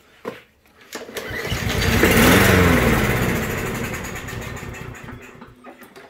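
Briggs & Stratton 140cc single-cylinder lawn mower engine, pull-started on a squirt of starting fluid: it fires about a second and a half in, revs up, then fades away over a few seconds as the fluid burns off. Running only on starting fluid shows it is a fuel delivery problem, typically a carburetor gummed up by old fuel.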